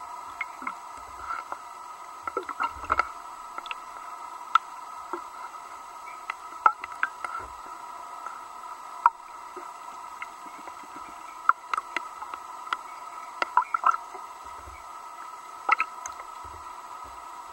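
Muffled underwater ambience picked up by a camera sealed in its housing: a steady hum, scattered sharp clicks and ticks at irregular intervals, and a few short low thuds.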